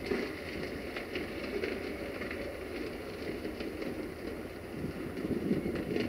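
Passenger train rolling slowly away through a railway yard: a steady rumble with faint clicks from the wheels and track.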